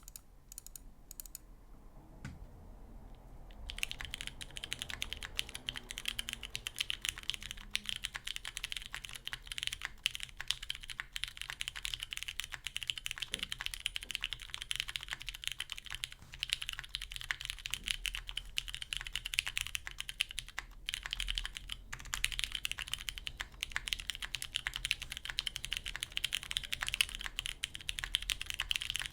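Custom gasket-mounted mechanical keyboard with an aluminium plate, lubed tactile Cherry MX Ergo Clear switches and GMK keycaps, being typed on. A few scattered keystrokes are followed, about four seconds in, by continuous fast typing.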